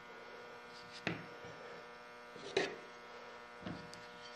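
A steady electrical mains hum, with three brief soft handling noises about one, two and a half and three and a half seconds in as a cut disc of wet clay and a needle tool are handled on the slab.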